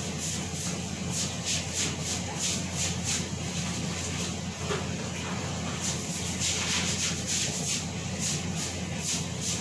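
Pot simmering on a gas stove burner: irregular soft crackling, several times a second, over a steady low hum.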